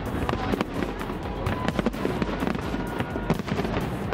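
Aerial fireworks bursting and crackling in quick, irregular succession, many sharp bangs overlapping, with music playing along.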